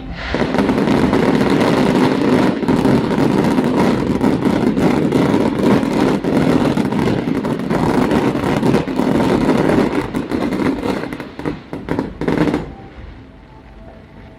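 A dense barrage of fireworks bursting, with continuous rapid crackling and popping. It cuts off abruptly near the end.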